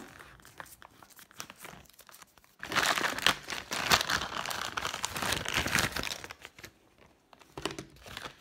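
Plastic mailing bag being crinkled and pulled open by hand, with faint rustling at first and loud, dense crackling from about two and a half seconds in, dying away shortly before the end.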